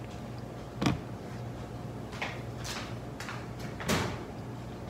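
Two sharp knocks about three seconds apart, the second the louder, with a few fainter clicks of handling between them, over a steady low hum.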